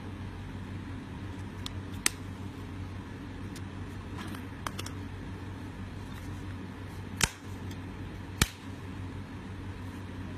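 Plastic phone cases being handled: scattered sharp clicks and taps, the loudest about two seconds in and two more about seven and eight seconds in, over a steady low hum.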